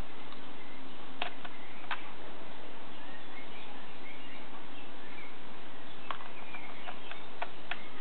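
Samsung NX10 camera body and lens being handled, with the lens twisted off and fitted back onto its mount: a few sharp plastic-and-metal clicks about a second and two seconds in, and a cluster of them in the last two seconds, over a steady hiss. Faint bird chirps come and go in the background.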